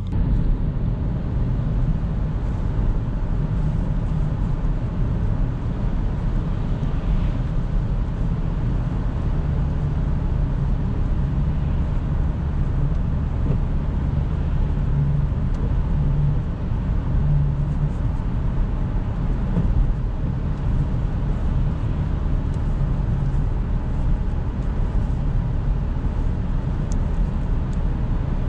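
Jaguar XF 2.7 V6 diesel under way, heard from inside the cabin: a steady low engine drone with tyre and road noise.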